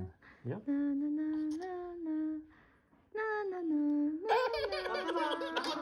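A woman humming a slow tune in long held notes, sung to calm nerves. About four seconds in, a second voice joins and the sound grows fuller.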